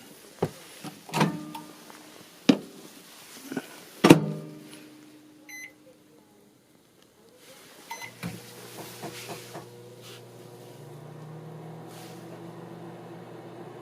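Microwave oven handled with several clunks and knocks, a short beep, and then, about eight seconds in, the oven starts running with a steady hum. This is an oven with a fault that lets it keep running even with its door open.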